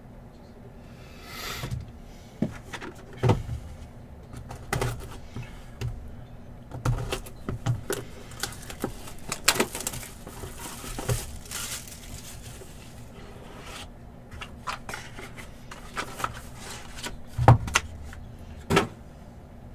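Hands opening a sealed Leaf Valiant Football trading-card hobby box: plastic wrap crinkling and tearing, and cardboard and plastic card holders clicking and knocking as they are handled, with a few sharper knocks.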